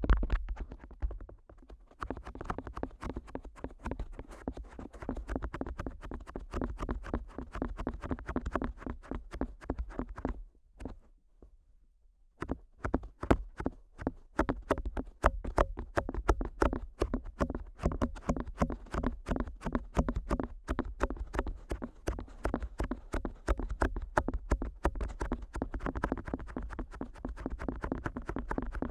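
Fingertips tapping and flicking on the ears of a Neumann KU100 dummy-head microphone, heard close up in binaural: a fast, even run of soft taps, broken by a pause of about two seconds near the middle.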